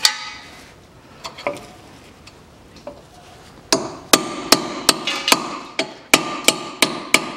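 Hammer striking a 19 mm twelve-point socket to drive a rubber dust boot into its seat on a brake caliper. One knock at the start and a couple of light taps, then from about halfway a quick run of ringing metal-on-metal blows, about three a second.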